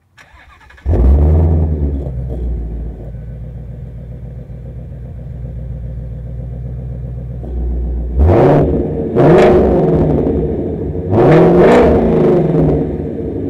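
A 2016 Ford Mustang Shelby GT350's 5.2-litre flat-plane-crank V8 starts about a second in with a loud flare, then settles to a steady idle through its quad exhaust. Later it is revved four times in quick blips, the last two close together, each rising and falling back to idle.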